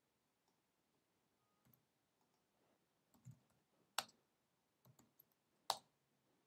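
Near silence broken by three isolated clicks at the computer: a faint one just after three seconds in, then two sharper ones about four and five and a half seconds in.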